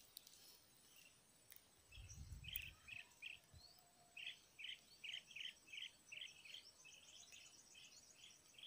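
Faint bird chirping: short chirps repeated about two to three times a second from about two seconds in, over near-silent background. A soft low thump comes about two seconds in.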